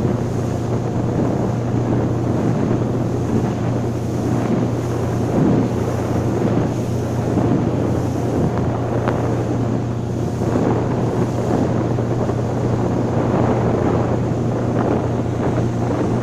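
Motorboat running at speed: a steady low engine drone under heavy wind buffeting the microphone.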